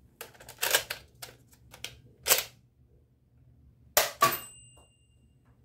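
Nerf Vortex disc blaster being handled and loaded with a run of plastic clicks and rattles, then a louder short stroke of the blaster a little over two seconds in. About four seconds in it fires with a sharp snap, and a quarter-second later a second knock with a brief ringing tone follows as the disc strikes the target.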